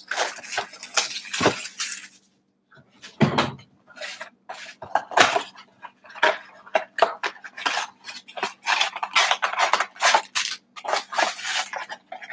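Plastic shrink wrap and card packs crinkling and rustling as a trading-card blaster box is unwrapped and opened by hand, in quick irregular crackles with a brief pause about two seconds in and a dull knock just after it.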